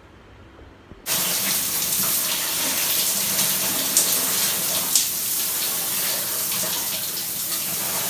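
Shower running: water spraying from the shower head and splashing onto a freshly shaved head, bare back and tiled floor, a steady rushing hiss that starts suddenly about a second in.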